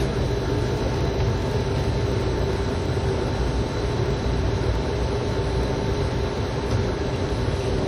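Rubber-tyred Taipei Metro train running steadily along its guideway, heard from on board: an even rumble with a faint constant whine.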